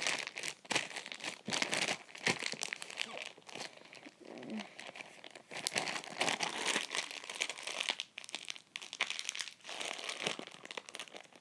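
Slime being squished and stretched by hand, giving a run of irregular crinkly crackles and small pops.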